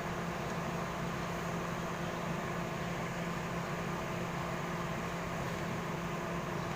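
A machine running steadily: an even mechanical hum with a constant low drone that does not change in pitch or level.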